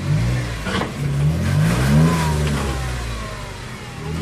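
Jeep JK Wrangler engine revving in bursts under load as it crawls up rocks. The pitch climbs and falls several times and is loudest about two seconds in. A short crunch comes just before the first second.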